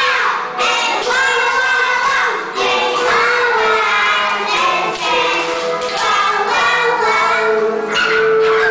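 A group of young children singing an English song together over a backing track.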